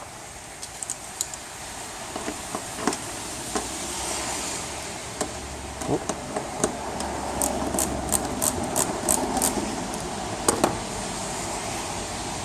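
Scattered sharp metallic clicks from a hand tool undoing the T30 Torx bolts that hold a car's headlight, with a quick run of about a dozen clicks in the middle, over a steady background noise.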